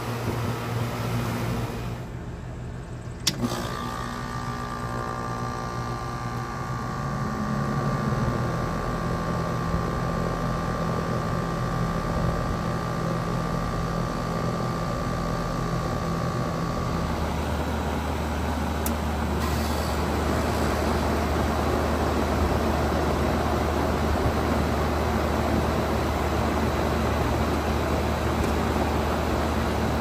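Outdoor air-conditioner condensing units running one after another. About three seconds in, one starts with a click and runs on with a steady compressor hum, a high whine and fan noise. Around the middle it switches abruptly to another unit with a lower steady hum and a louder rush of fan air.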